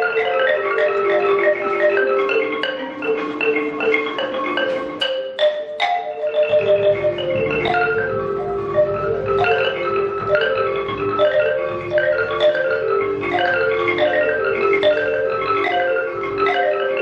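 Live jazz band playing a fast, repeating figure of short, ringing pitched notes. Two sharp percussion hits come about five seconds in, and a bass line enters soon after.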